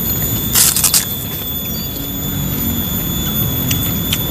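A crisp kerupuk cracker bitten into and crunched, a quick crackling run lasting about half a second, starting about half a second in, followed by softer chewing. Under it a steady high whine.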